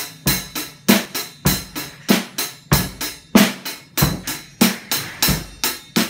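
A drum kit played in a steady, basic rock beat. The hi-hat ticks about three times a second, and the bass drum and snare alternate underneath it.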